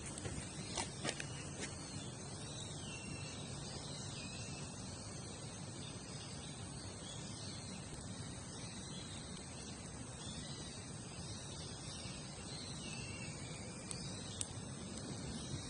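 Crickets chirping in a continuous, dense chorus, with a few short sharp clicks about a second in and again near the end.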